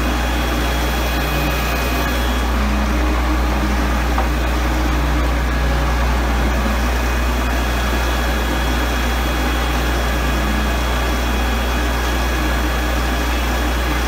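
Motor-driven grease kettle mixer running: a steady, loud machine drone with a strong low hum and a few faint steady tones above it.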